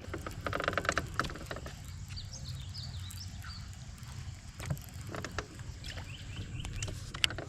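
Fishing boat on the water: a steady low hum and water noise, with a run of clicks about a second in and scattered light ticks. Faint high chirps come through now and then.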